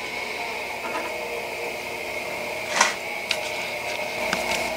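DC wire-feed motor from a MIG welder, belted to a lathe lead screw, running with a steady high whine while its speed is turned up. A sharp click a little under three seconds in, then a few lighter ticks.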